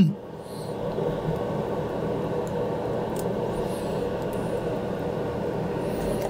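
Solder fume extractor fan starting up and running steadily, a constant whir that comes up over the first second and then holds level.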